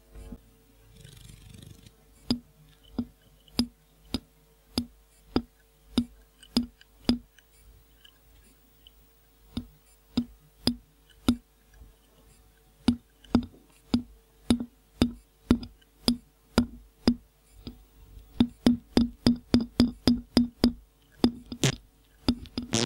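A parrot's beak tapping and knocking on a microphone: a run of sharp knocks, spaced a little over half a second apart at first, pausing briefly, then quickening to about three a second near the end.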